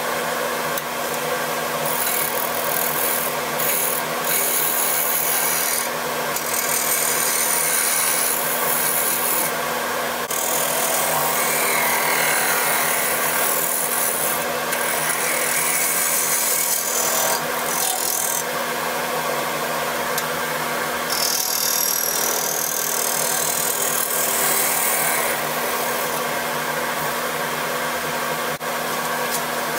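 Wood lathe running, its motor giving a steady hum, while a bowl gouge cuts the outside of a spinning Siberian elm bowl with a rasping, scraping sound that swells and eases as the tool is worked.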